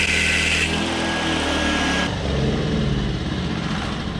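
Ryobi 1800W inverter generator running hard under the load of a shop vac and an angle grinder bogged into steel. The grinding stops about half a second in, a thin whine carries on until about two seconds in, then the tools go off and the generator's engine note changes and begins to fade as the load comes off.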